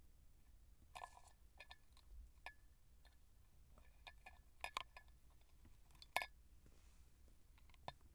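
A kitten batting small toy balls, making faint, scattered light clicks and taps, a few with a brief small ring; the loudest tap comes about six seconds in.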